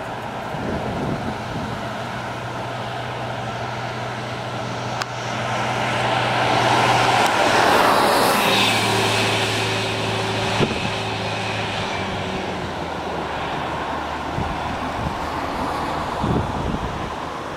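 Orion VII diesel-electric hybrid city bus approaching and passing close by. Its running hum grows to its loudest about eight seconds in, drops in pitch as it goes by, then fades as it pulls away.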